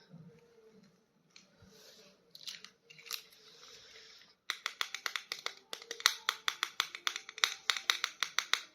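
Plastic toy packaging being handled: soft rustling at first, then, about halfway through, a fast run of sharp crackling clicks, several a second.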